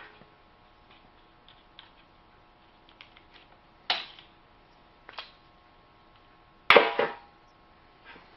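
A few short, sharp knocks and clicks of tools and the chainsaw being handled between sharpening steps, the loudest a double knock about two-thirds of the way through.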